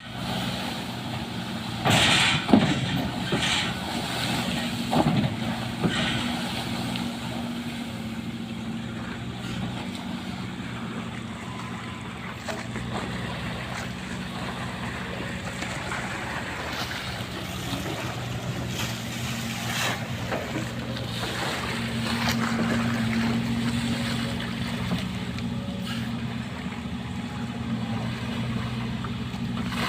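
Sumitomo SH130LF hydraulic excavator's diesel engine running steadily, rising in pitch and loudness for a few seconds past the twenty-second mark as it takes hydraulic load. Several brief, loud bursts of noise come in the first six seconds, with more a little past halfway.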